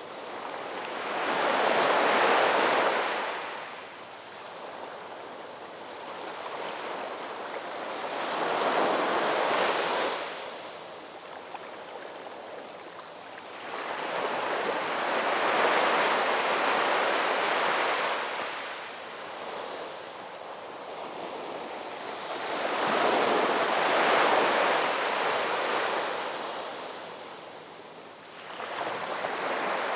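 Ocean surf breaking on a beach: waves wash in about every seven seconds, each one swelling and then fading over a few seconds, with a steady hiss of water between them.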